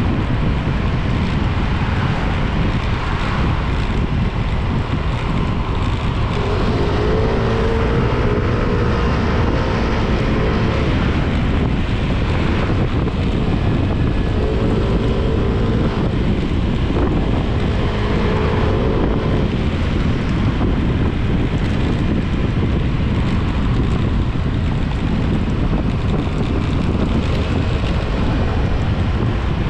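Motorcycle riding along a road, heard as steady wind rushing over the microphone with the engine running beneath it. A few short pitched hums swell and fade midway through.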